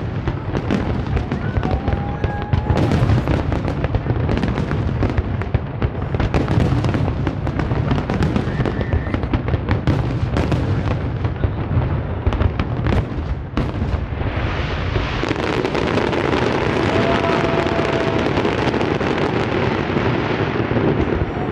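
Fireworks display at close range: a rapid, dense run of shell bursts banging over one another, changing about two-thirds of the way in to a steady, dense crackling from crackle-star effects.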